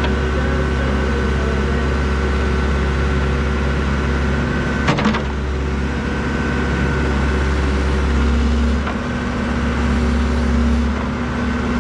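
Backhoe's diesel engine running steadily as the machine works its way out of a sinkhole, with a single sharp knock about five seconds in and a slight rise in engine pitch later on.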